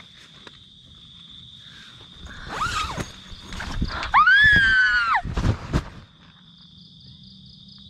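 Crickets chirping, cut off by a loud wailing cry: a short rising-and-falling call, then a longer arched cry about a second long, followed by a couple of low thumps before the crickets return.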